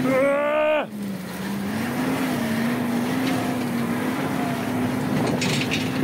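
An engine running steadily at a near-constant pitch. A short raised voice sounds over it in the first second.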